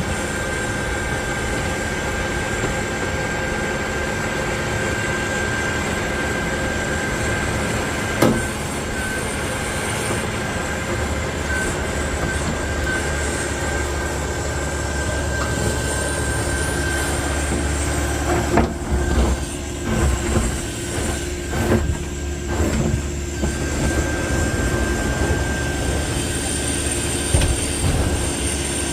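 Backhoe loader's diesel engine running steadily under work with a constant high whine. A single sharp knock comes about eight seconds in, and uneven surges and knocks follow from about two-thirds of the way through.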